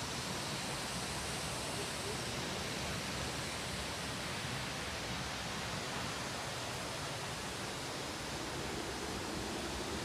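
Steady, even rush of water from a waterfall and its stream, with no breaks or changes.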